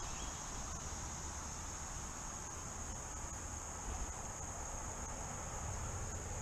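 A steady, high-pitched drone of summer insects, one even pitch held throughout, over a low rumble.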